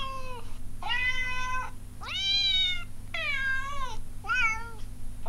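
Recorded cat meows played from a cat-translator phone app: a run of about five separate meows, each under a second long, several falling in pitch at the end, the last short and wavering.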